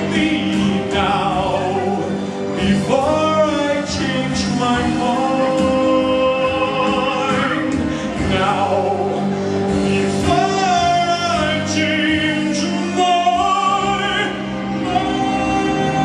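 A man singing into a microphone over instrumental accompaniment, holding long notes with vibrato.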